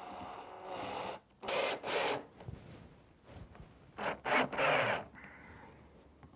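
Cordless drill-driver driving black drywall screws into film-faced plywood in several short bursts.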